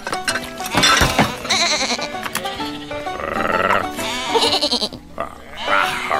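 Cartoon soundtrack music with bleating from the animated sheep characters coming in and out over it.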